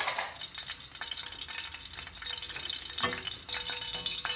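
Hot ghee sizzling and crackling in an aluminium pot as a wooden spoon stirs it, with two sharp knocks, one at the start and one about three seconds in.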